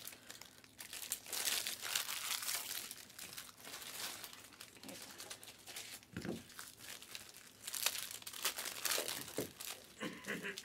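Plastic trading card pack wrappers crinkling and tearing in irregular bursts as packs are handled and opened by hand.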